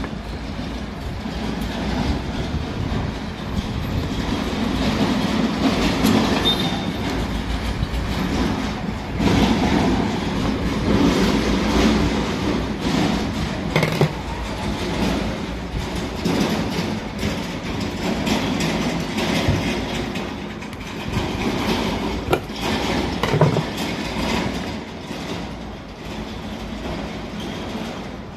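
Continuous rattling, clattering mechanical rumble with occasional sharp knocks as a ceiling fan with a suspected worn bearing is worked on by hand.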